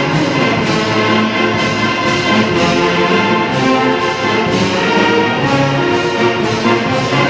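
A full brass band of trumpets, trombones, sousaphones and bass drum playing a march, the instruments sustaining chords over a steady beat.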